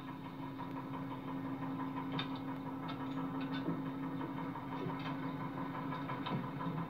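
A bus engine idling steadily at the stop, with a few faint clicks in the middle, heard as played back from a television.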